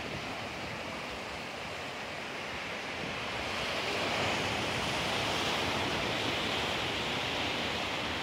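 Ocean surf breaking and washing against a rocky lava shore, a steady rush of white water that swells louder about three and a half seconds in.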